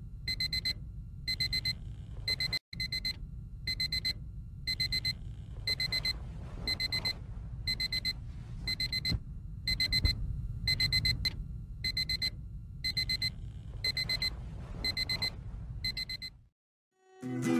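Digital alarm clock beeping: tight groups of short, high, pure beeps repeat about every half second over a low steady rumble. The beeping stops about a second before the end.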